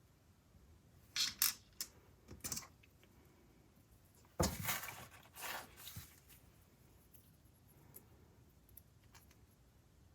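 Small 3D-printed plastic parts and magnets being handled: a few light clicks and taps, then a sharper click about four and a half seconds in followed by a short scraping rustle, and only faint ticks after that.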